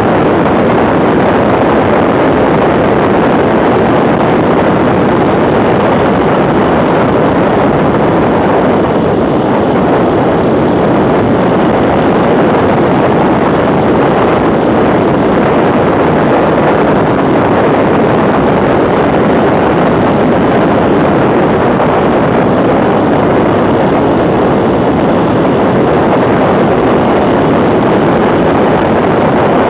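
Motorcycle riding at steady road speed: heavy wind rush buffeting a handlebar-mounted camera's microphone, mixed with the BMW R1150R's boxer-twin engine running steadily underneath.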